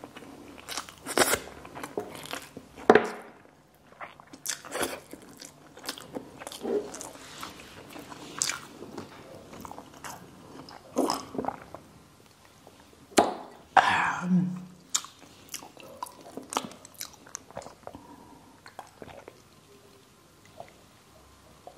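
Close-miked eating and drinking mouth sounds: scattered lip smacks, chewing clicks and swallows as sips of orange juice are taken from a glass.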